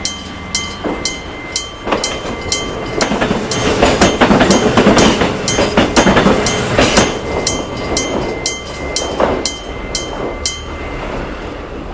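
Electric-bell level crossing ringing with evenly spaced strikes, about two to three a second, while a Kumamoto Electric Railway train passes over the crossing. The train is loudest in the middle and fades away, and the bell stops shortly before the end.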